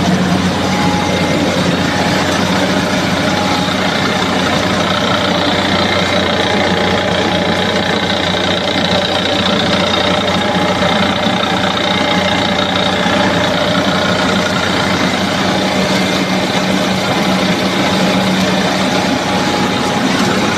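NG 25D combined rice milling machine running steadily: a loud, unbroken mechanical drone with a constant hum.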